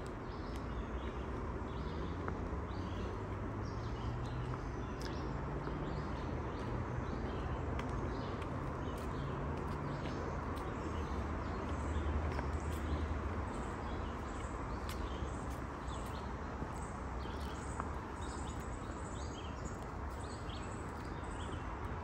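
Woodland ambience: birds chirping in many short repeated calls over a low steady rumble, with a few light footsteps on a paved trail.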